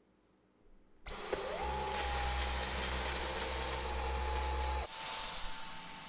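Dyson cordless stick vacuum switching on about a second in: its motor whine rises quickly to a steady high pitch and runs, with a fine high whistle above it. Near five seconds it dips briefly and then runs on with less low rumble.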